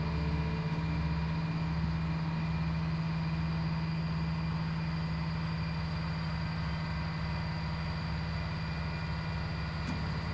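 Steady low mechanical hum with a low, uneven throb underneath, like an engine idling or workshop machinery running.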